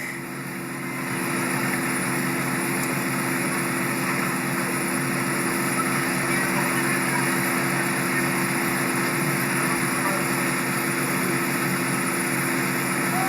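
A steady mechanical drone with a rushing noise, growing louder about a second in and then holding even.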